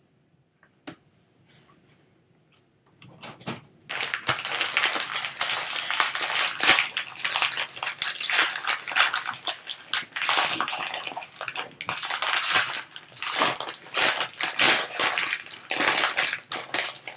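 Foil wrapper of a trading-card pack being torn open and peeled back by hand, crinkling and crackling steadily from about four seconds in.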